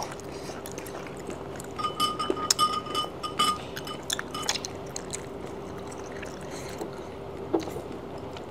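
Light clinks of utensils against small ceramic dishes, several in quick succession between about two and three and a half seconds in, with a faint steady hum underneath.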